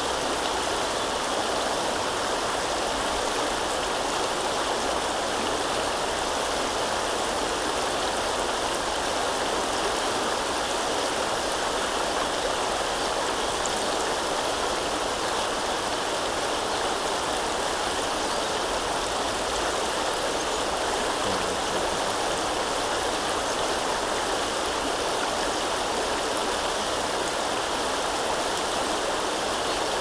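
Steady, unbroken rush of a river's choppy, flowing water.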